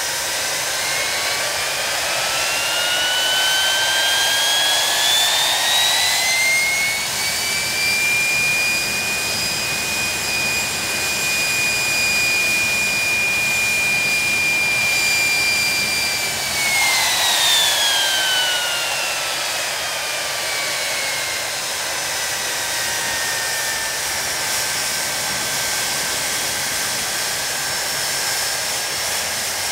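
Rolls-Royce Spey turbofans of a Hawker Siddeley Nimrod on a ground engine run, over a steady rushing roar. An engine's whine rises over the first several seconds as it is throttled up, holds steady for about eight seconds, then falls back as it is throttled down toward idle.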